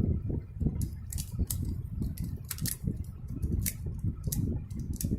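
Moyu Pyraminx-S magnetic puzzle being turned by hand: irregular sharp plastic clicks as its magnetised pieces snap into place, over a low rumble of hands handling it close to the microphone.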